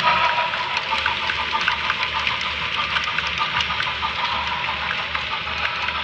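HO scale model freight train rolling past, with rapid, irregular clicking from its wheels on the track and a low pulsing rumble about twice a second, easing slightly as the caboose goes by.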